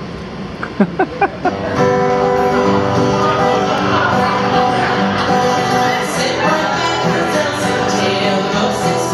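Live acoustic guitar with a woman singing into a microphone. Four quick sharp accents about a second in lead into the full song.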